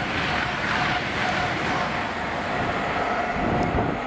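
A train running past at speed: a steady rushing noise with a faint steady whine.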